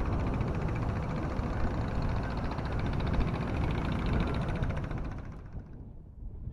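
Boat engine running steadily under way, with a fast even pulse, over rushing wind and water. It fades out about five and a half seconds in.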